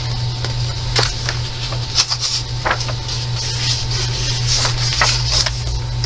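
A page of a large paperback colouring book being handled and turned by hand: a few light paper taps, then a rustle as the page slides over, over a steady low hum.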